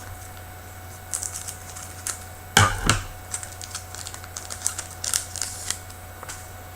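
Hockey trading cards and packs being handled by hand: a run of light, irregular clicks and flicks, with two louder knocks a little before halfway.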